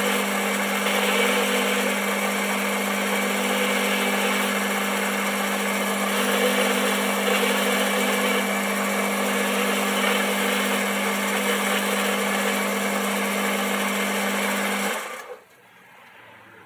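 Boxford metal lathe running with a steady hum while a carbide-insert radius (ball) cutter turns a dome on the end of a tough steel bar. The sound stops abruptly near the end.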